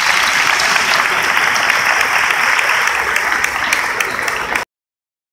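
Audience and head-table panel applauding steadily, with many hands clapping at once. The applause cuts off suddenly near the end.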